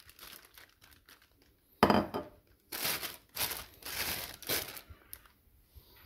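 Thin plastic carrier bag crinkling and rustling as raw pork pieces are pushed into it by hand, in four loud bursts starting about two seconds in.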